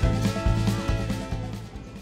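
Background music with a drum beat and held instrument notes, fading out near the end.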